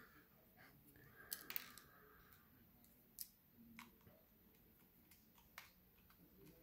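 A few faint, sharp clicks and light scrapes of a screwdriver working on small metal parts: screws and brackets being taken off a laptop hard drive.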